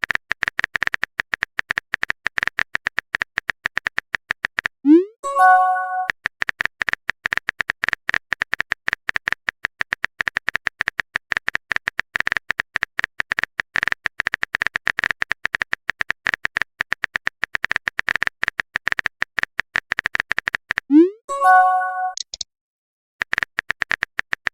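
Rapid, even clicking of phone-keyboard typing sounds. The clicking breaks twice, about five seconds in and near the end, for a short rising pop and chime, a message-sent sound.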